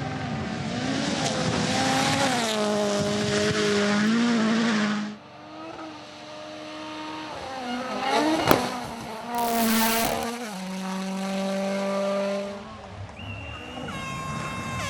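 Rally cars at full speed, engines revving hard and changing pitch through gear changes, in several short shots cut one after another. A sharp crack comes about eight and a half seconds in, followed by a brief loud hiss.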